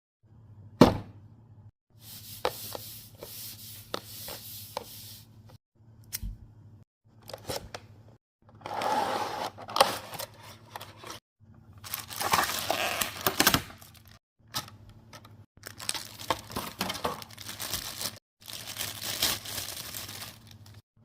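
Figure packaging being opened by hand: cardboard and plastic tearing, crinkling and scraping in irregular bursts, with a few sharp clicks, the loudest about a second in.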